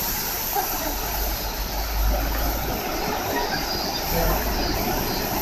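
Steady rushing of a fast river over rocks in a gorge, an even roar with a low rumble underneath.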